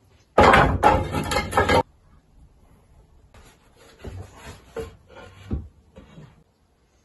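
Hazel poles and a stick chair frame knocking and clattering together as they are handled: a loud rattle of wooden knocks lasting over a second, then lighter, scattered knocks.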